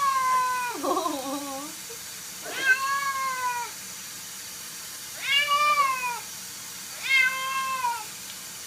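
Cat meowing: four long, drawn-out meows, one every couple of seconds, each sliding a little down in pitch.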